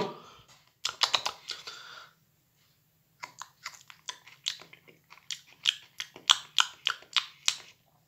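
A person chewing a bite of whole onion cooked in the microwave, close to the microphone: a train of short clicks, about three a second, that settles into a steady rhythm in the second half.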